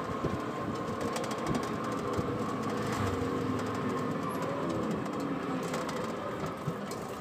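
Steady running noise of a road vehicle in motion, heard from on board: engine and road rumble with wind rushing past the open window and a faint steady whine.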